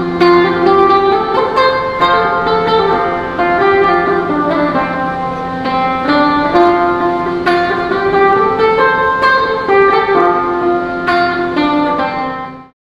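Sape, the Bornean boat-shaped lute, playing a plucked melody of repeating notes over a steady low drone; the music fades out near the end.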